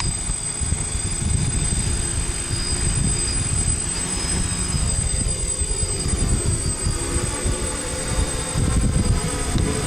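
DJI F550 hexacopter's brushless motors and propellers whirring in flight, their pitch shifting in the middle. Wind buffets the microphone throughout.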